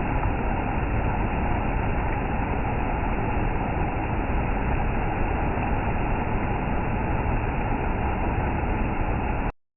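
Steady rush of falling water from a waterfall, cutting off abruptly near the end.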